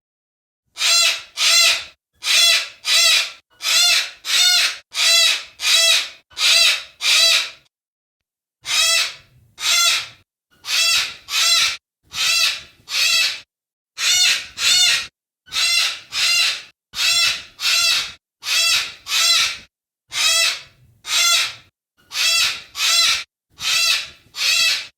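Yellow-crested cockatoo calling over and over: loud, short calls, each under half a second, coming about one every two-thirds of a second, with a brief pause about eight seconds in.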